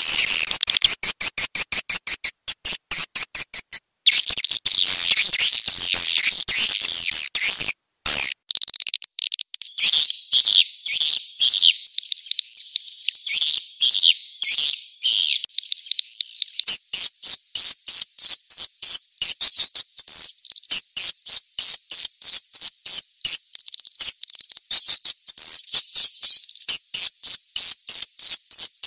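Swiftlet calling recording: rapid, high-pitched swiftlet chirps and twitters, the lure sound played to draw swiftlets in. The sound cuts out abruptly twice early on, then settles into a fast, even series of chirps.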